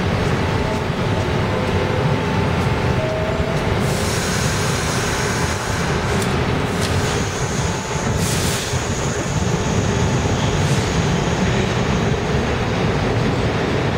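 New York City subway train at a station: doors closing, a short burst of air hiss about halfway through, then the train pulling out, with a steady heavy rumble underneath.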